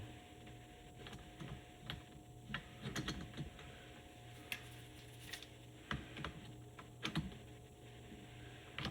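Irregular light clicks and taps of hand tools and small metal parts being handled, about a dozen over several seconds, over a steady low hum.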